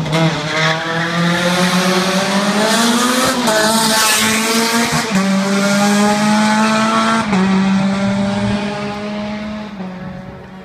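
Rally car engine revving hard as the car leaves the start line and accelerates up the road. The pitch climbs and drops back at each of three or four upshifts, and the sound fades as the car pulls away near the end.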